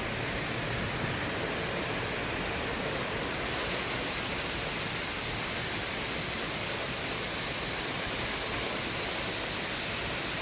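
Heavy rain falling steadily in a storm, an even hiss. About a third of the way in the hiss grows sharper as the rain picks up.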